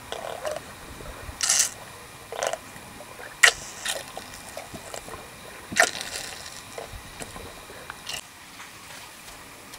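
A cow drinking from a metal water trough: irregular slurps and sloshes of water, a few of them much louder than the rest.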